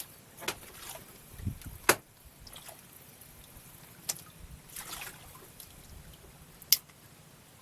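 Water splashing and dripping at a small boat, with a few sharp knocks scattered through, the loudest near the end.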